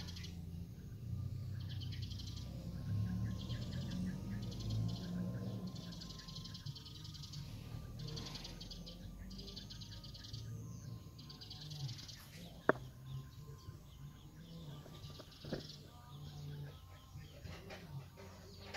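Small birds chirping in repeated high, trilling bursts over a low rumble, with a single sharp click about two-thirds of the way through.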